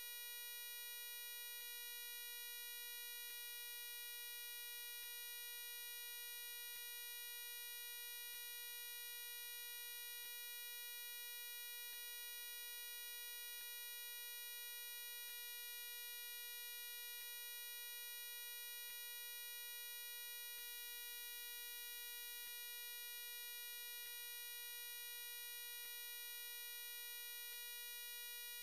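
A steady, buzzy electronic tone held at one mid pitch, with a faint tick about every second and three quarters.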